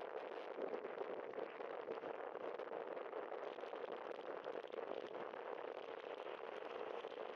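Steady rushing ride noise from a camera mounted on a moving bicycle: wind on the microphone and tyres rolling on wet pavement.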